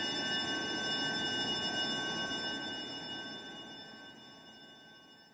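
Horror sound effect: a cluster of sustained, high metallic ringing tones over a low rumble, fading out steadily from about halfway through.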